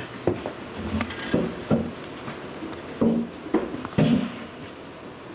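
Irregular light knocks and bumps on wood, about eight over a few seconds, with some rubbing between them.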